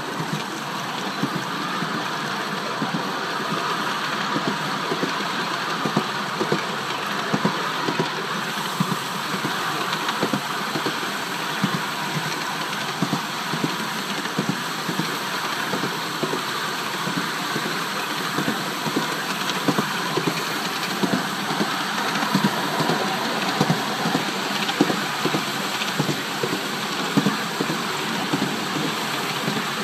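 A 5-inch gauge coal-fired Polly 6 miniature steam locomotive running along the track, heard from just behind its cab: a steady rushing noise with frequent small clicks and knocks.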